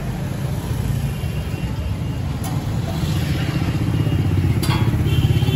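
A motor vehicle engine running steadily in street traffic, growing louder toward the end, with two sharp clinks.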